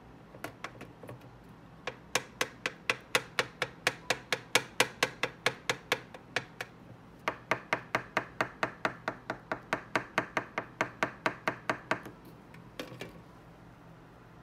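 Metal fork rapidly pricking raw tart dough in aluminium foil cups, each stab a sharp tap of the tines through the pastry onto the foil base, about four or five a second. The taps come in two long runs with a brief pause between, then a few more near the end: docking the tart shells so the dough won't puff up.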